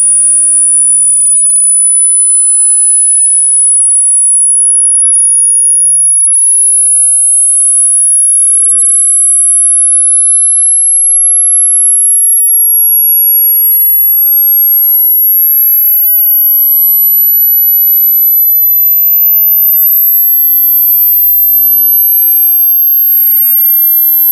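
A loud, very high-pitched pure electronic test tone held steady and climbing in small steps every two to three seconds.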